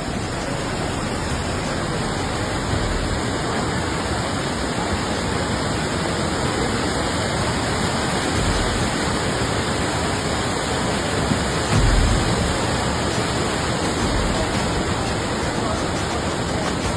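Floodwater from an overflowing drain rushing steadily, an even, continuous roar of water, with a brief low bump about twelve seconds in.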